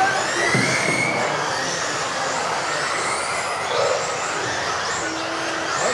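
Several electric off-road RC cars racing together, their motors whining in overlapping pitches that rise and fall as they accelerate and brake, over a steady noisy rush.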